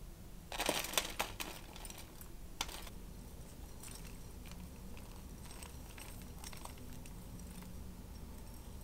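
Buttered digestive-biscuit crumbs tipped from a glass bowl into a stainless-steel mousse ring: a cluster of light clicks and rustling in the first second and a half, one more click a moment later, then only faint scattered ticks.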